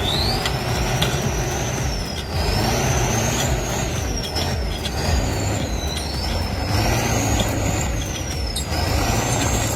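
Kirovets K-700 tractor's diesel engine working hard under load on a stump pull, with a high turbo whistle rising and falling about five times as the throttle is worked, over a steady low rumble.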